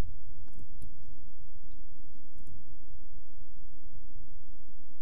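Steady low hum and line noise from an open phone call with nobody talking, with a few faint clicks.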